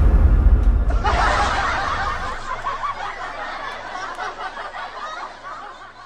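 Shrill, drawn-out cackling laughter in the style of a kuntilanak ghost, starting about a second in and trailing off near the end. Under its start, a loud low boom dies away over the first two seconds.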